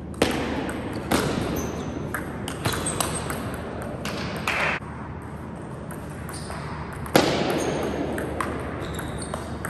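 Table tennis ball being hit back and forth in a rally, sharp ticks of ball on rackets and table at an uneven pace, ringing in a large hall. The hardest hits come just after the start and about seven seconds in.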